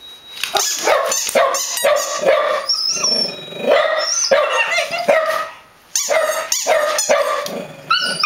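Dogs barking repeatedly in quick, short barks while playing together, with a brief pause about six seconds in.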